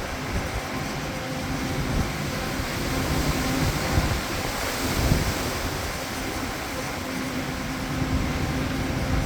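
Strong storm wind gusting and buffeting the microphone, with a couple of stronger gusts around the middle, over a faint steady hum.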